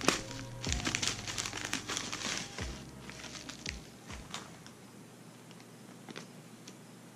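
Plastic packaging crinkling and crackling as it is handled and pulled open. It is busiest in the first three seconds, then thins to scattered crackles.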